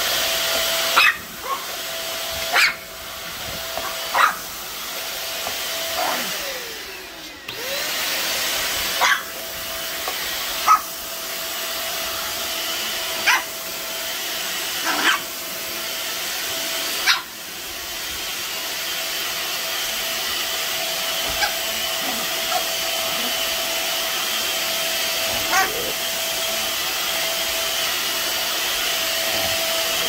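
Deerma DX700 stick vacuum cleaner running steadily, with a small dog barking about a dozen short, sharp times over it, most of the barks in the first half and a few fainter ones later.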